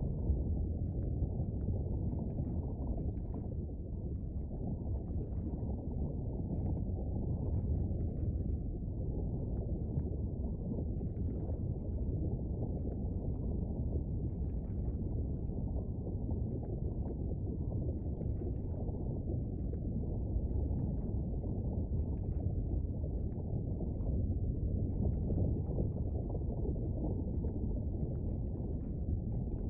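A looped volcano sound effect: a low, steady rumble with faint crackles and pops every second or so, like churning lava.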